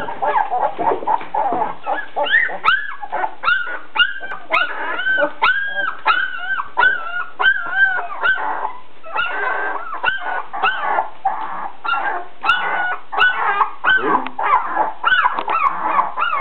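A litter of 16-day-old Spanish water dog puppies whimpering and squealing, short high-pitched cries several a second, overlapping without a break.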